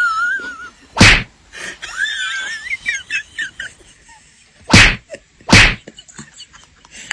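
Three loud slap-like whacks, two of them close together near the end, with wavering high-pitched squealing cries between the first two.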